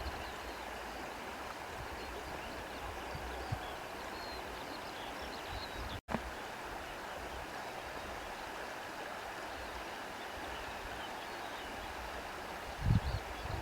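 Breeze blowing through grass: a steady rustling hiss. Near the end, a gust buffets the microphone with low rumbling thumps. About six seconds in, the sound cuts out for a split second.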